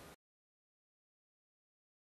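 Near silence: faint room tone that cuts off a fraction of a second in, leaving dead digital silence.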